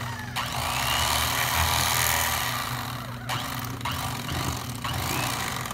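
Electric fillet knife running with a steady buzz, its reciprocating blades slicing the rib bones off a walleye fillet. The hissing cutting noise drops out briefly a few times as the blade is eased through.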